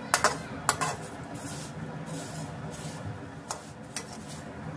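A metal slotted spoon scraping and clinking against a metal kadhai while stirring vermicelli roasting in ghee. There are several quick strokes in the first second, then a couple of sparser ones, over a faint steady hiss.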